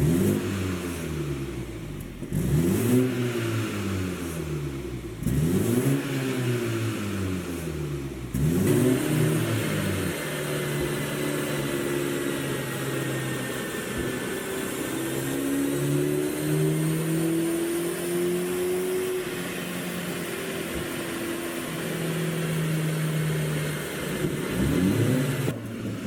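BMW 330i's 2.0-litre turbocharged four-cylinder engine and exhaust, ECU-tuned for overrun pops, revved up and dropping back three times, then running steadily at low revs before one more rev near the end.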